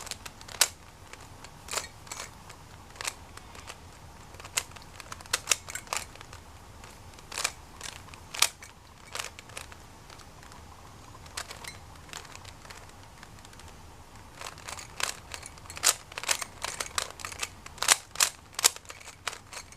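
3x3 speed cube being solved by hand, its plastic layers clicking as they turn in irregular runs of sharp clicks that come quicker over the last few seconds.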